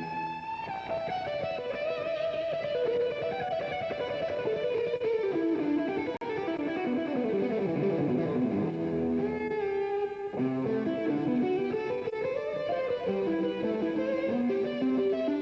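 Instrumental music led by a plucked guitar, playing quick runs of notes that sweep down and back up in pitch.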